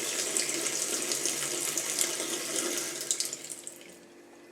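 Water running steadily from a freshly re-washered tap into a sink, then shut off about three and a half seconds in, the flow dying away within half a second as the tap is tested after the repair.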